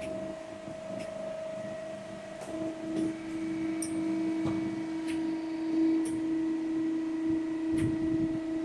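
Soft-plastic lure injection molding machine running with a steady mechanical hum, which gets louder about a third of the way in. A few light clicks sound over it.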